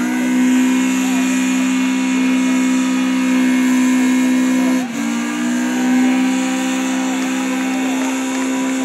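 Car engine held at high revs in a tyre-smoking burnout, a steady high drone with the wheels spinning on the pavement. The revs drop briefly about five seconds in and climb straight back.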